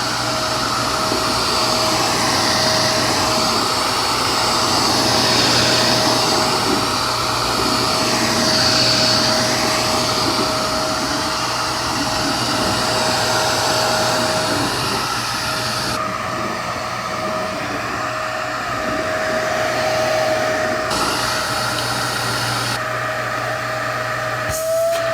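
Hoover Savvy bagless upright vacuum cleaner running with its brush roll switched off: a steady motor whine over a loud rush of air. The rush dulls for a few seconds about two-thirds of the way through, and there are a few clicks near the end.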